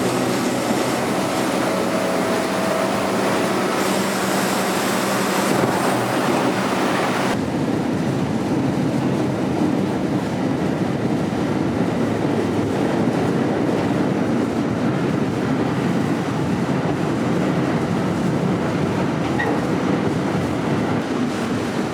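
Staten Island Railway R44 subway train running on the rails, with a steady rumble and a faint steady motor hum in the first several seconds. About seven seconds in, the sound changes abruptly to a duller, steady rumble of wheels and wind.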